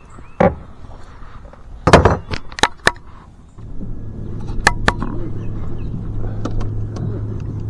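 A few sharp knocks and clicks, then from about halfway through a steady low motor hum.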